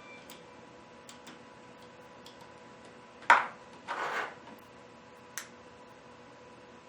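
Scattered small clicks and taps from handling on a workbench, with one sharp knock about three seconds in and a brief rustle right after it. A faint steady hum runs underneath.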